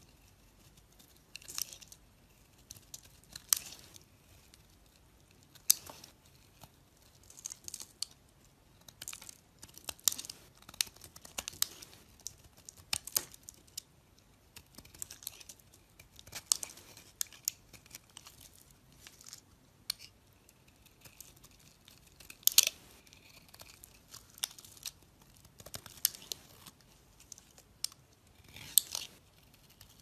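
A snap-off utility knife blade cutting shavings from a bar of soap. Short separate scraping cuts come about one every second or two, with quiet between them.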